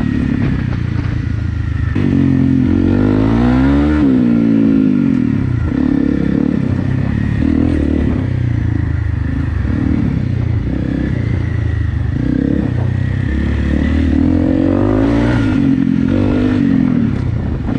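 Single-cylinder Honda dual-sport motorcycle engine running under way on a trail, its pitch rising as it revs up and falling as it eases off, about three seconds in and again near the end, with some rattling over rough ground.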